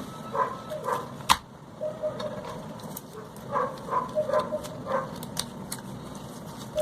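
A dog yipping in short, repeated sounds, with one sharp click about a second in.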